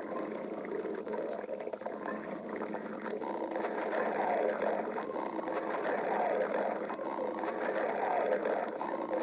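A person's stomach growling: continuous gurgling rumbles that shift and swirl in pitch, with two faint clicks in the first few seconds.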